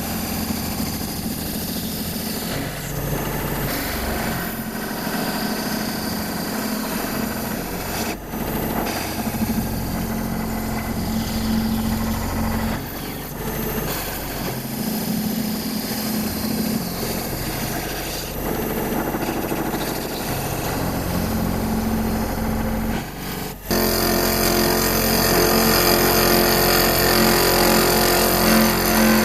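CNC router spindle spinning a fly cutter in a surfacing pass across an aluminum plate held on a vacuum fixture, with the vacuum pump running steadily beneath. The cut rises to a steady sound, then about 24 seconds in it abruptly gets louder, with more high-pitched whine.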